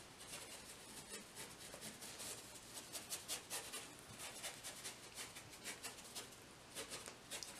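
Wide flat paintbrush stroking acrylic paint back and forth across a textured canvas board: faint, quick, repeated scratchy brush strokes.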